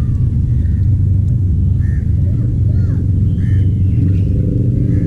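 Loud, steady low rumble, with faint short chirps of small birds over it; a low hum of steady pitch joins about four seconds in.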